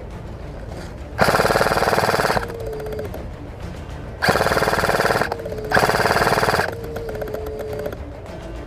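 Airsoft gun firing on full auto in three bursts of about a second each, the last two close together.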